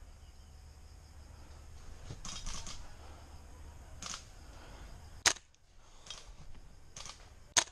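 Airsoft gas blowback gunfire: two sharp, loud single shots about two seconds apart in the second half, with several fainter pops and clicks before them.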